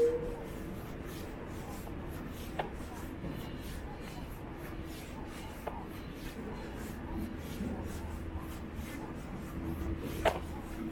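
Footsteps of someone walking a park trail, shuffling steadily over a low rumble of outdoor background noise. A short squeak comes right at the start, and a few sharp clicks follow, the loudest near the end.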